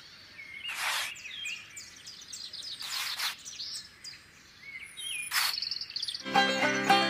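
Birds chirping and calling in an outdoor ambience, many short falling chirps and a high trill, with three short hissing swishes about one, three and five and a half seconds in. Music comes in near the end.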